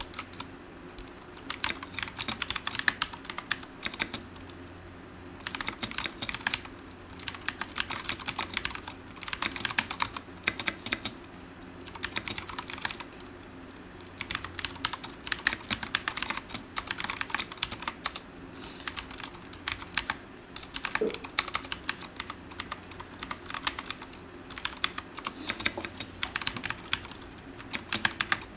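Typing on a Ducky One TKL mechanical keyboard with clicky Cherry MX Blue switches: fast runs of sharp keystroke clicks in bursts of one to two seconds, with short pauses between.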